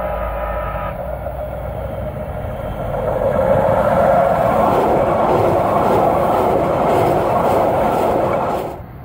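Kinkisharyo P3010 light rail train approaching and passing close by: a steady rumble of wheels on rail that grows louder about three seconds in, stays loudest as the cars go by, and cuts off suddenly near the end.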